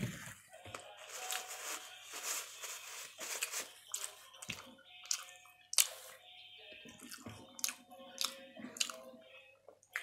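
A person biting into and chewing a crunchy toasted sandwich close to the microphone, with a run of sharp crackling crunches.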